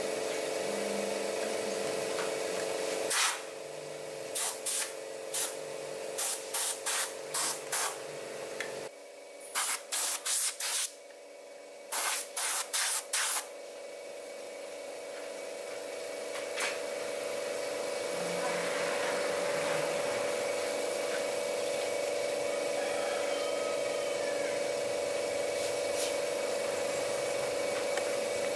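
A run of short hissing bursts of compressed air, like a spray gun or air nozzle triggered again and again, about two or three a second in groups during the first half. Under them runs a steady machine hum.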